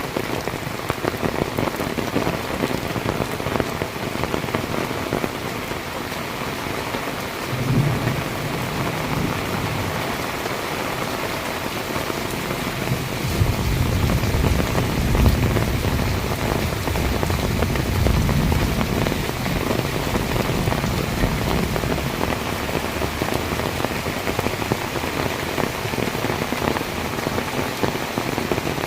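Heavy rain pouring steadily, with thunder rumbling low in the distance: a short roll about a third of the way in, then a longer, louder roll near the middle.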